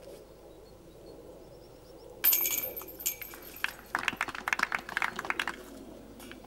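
Disc golf basket chains jingling as a putt strikes them about two seconds in, followed by a run of rapid metallic clinks and rattles from the chains and wire basket: a made putt.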